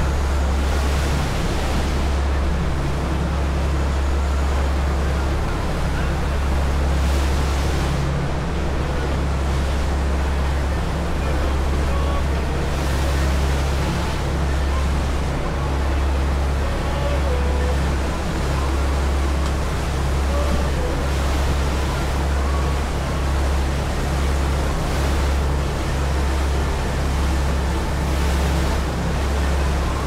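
Passenger ferry under way: a steady low engine drone with the rush of water from its wake, and wind buffeting the microphone.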